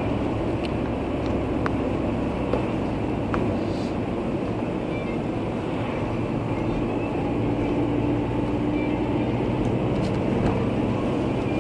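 Steady engine and tyre noise of a car driving on a paved road, heard from inside the cabin: an even low rumble with a few faint ticks.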